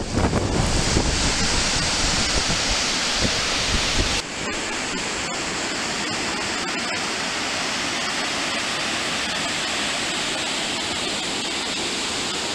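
Gusty wind buffeting the microphone in a snowstorm, with a heavy rumble for about four seconds. Then, after an abrupt change, a steady even rush of water from many small waterfalls cascading out of a lava field into a river.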